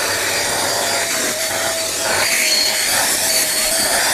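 PerySmith PS7000 corded handheld vacuum cleaner with a 700 W cyclone motor running at full suction: a steady whine over rushing air as its nozzle sucks small debris off fabric upholstery.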